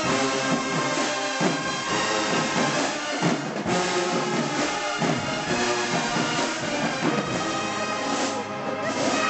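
HBCU marching band brass section playing a slow ballad, with trumpets, mellophones (F horns), baritones and trombones holding full sustained chords.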